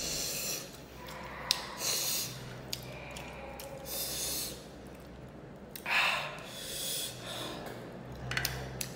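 A man's sharp breaths in and sniffs through mouth and nose, about one every two seconds, the loudest about six seconds in, as he eats very spicy chili-sauced fish: a reaction to the chili heat.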